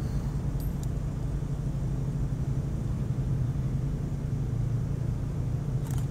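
Steady low engine-like rumble, with a few faint light clicks about half a second in and again near the end.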